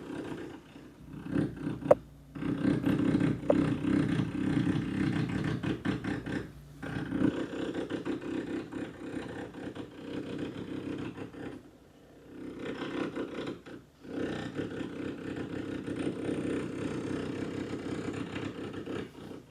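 Electric drill running in long, rough stretches, stopping briefly a few times between them.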